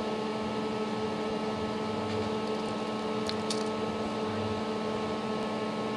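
A steady electrical machine hum made of several constant tones, with two faint light clicks about three and a half seconds in.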